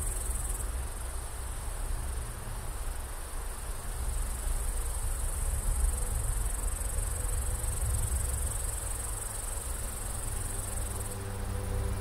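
Steady, high-pitched chorus of insects chirring, with a low rumble underneath.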